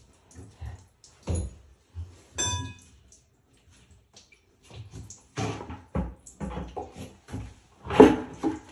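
Brass sink plumbing fittings being handled and taken apart by hand: scattered metal clinks and knocks. One clink about two and a half seconds in rings briefly. A run of knocks starts about five seconds in, and the loudest knock comes near the end.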